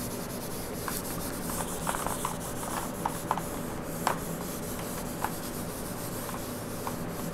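Handheld whiteboard eraser rubbing back and forth across a whiteboard, wiping off marker, with small knocks and ticks now and then.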